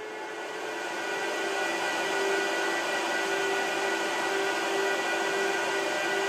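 Cooling fans of a 2008 Apple Xserve rack server and Xserve RAID running, a steady rushing hum with a constant whine in it. It grows louder over the first couple of seconds, then holds steady.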